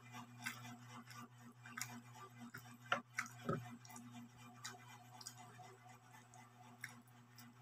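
Faint eating sounds: scattered soft clicks and smacks of chewing and of fingers picking food off a plate, with one sharper click about three seconds in. A steady low hum runs underneath.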